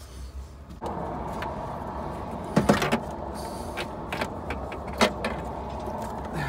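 Scattered clicks and knocks of hand tools and plastic trim being worked inside a car's interior. The loudest is a cluster a little under three seconds in, followed by a single sharp click about five seconds in, over a steady background hiss that starts about a second in.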